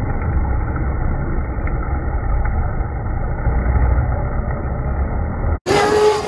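Wind buffets the microphone in a steady low rumble while a 1st Racing FTO10 RC speedboat with an upgraded brushless motor runs fast across choppy water. About five and a half seconds in, the sound drops out for an instant and a steady high motor whine takes over.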